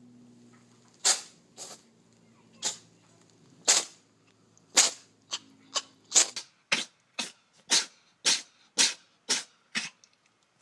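A cat sneezing over and over in a fit: about sixteen short, sharp sneezes, roughly one a second at first and quickening to about two a second in the second half.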